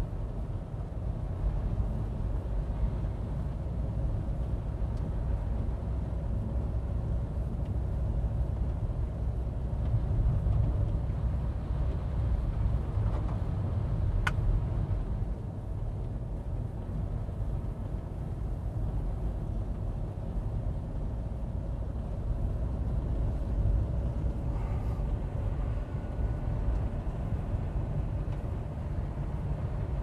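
Steady low rumble of a car driving on a snow-covered road, heard from inside the cabin: engine and tyre noise, with one short click about halfway through.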